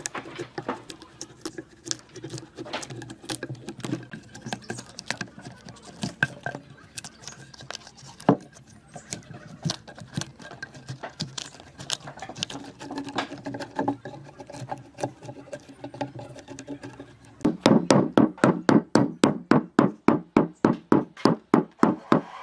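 Scattered knocks and clicks of wooden pieces being handled, then near the end a fast, steady run of loud hammer strikes on wood, about four a second.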